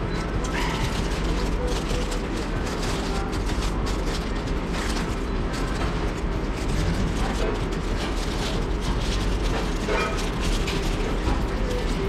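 Paper burger wrapper crinkling and rustling as it is unfolded and handled, a dense run of small crackles over a steady low hum of room noise.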